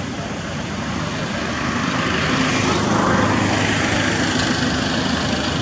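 A distant engine drone over a wash of broad noise, swelling over the first few seconds and then holding, with a low steady hum.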